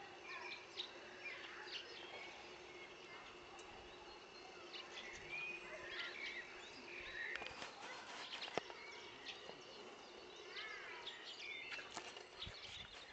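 Faint outdoor ambience of wild birds chirping and calling on and off over a steady low hum, with a single sharp click about eight and a half seconds in.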